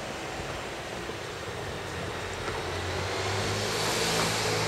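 A vehicle approaching and passing: its noise builds steadily with a low hum, peaking about four seconds in, over wind noise on the microphone.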